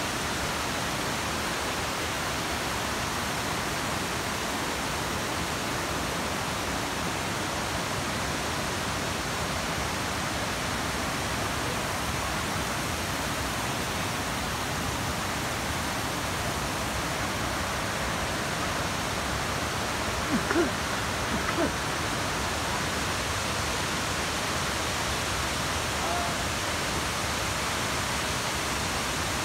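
Steady rushing of cascading water from waterfalls and pool cascades, an even roar with no rhythm. A brief snatch of a voice cuts in about two-thirds of the way through.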